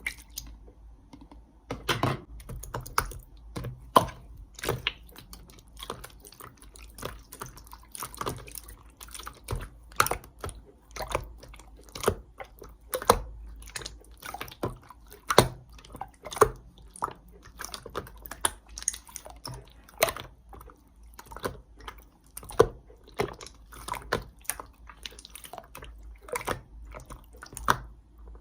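Slime being squeezed and pressed by hand, giving irregular wet pops and clicks, a few a second.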